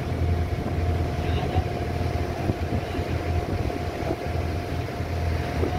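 Motorboat engine running steadily under way: a steady low drone with a thin steady tone above it, over the rush of water and wind.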